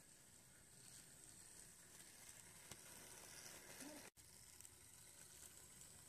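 Near silence: a faint steady hiss that drops out for an instant about four seconds in.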